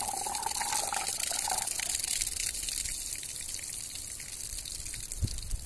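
Water gushing in a steady rush out of an upside-down plastic drinking bottle that has been swirled to set up a vortex, the stream splashing onto grass.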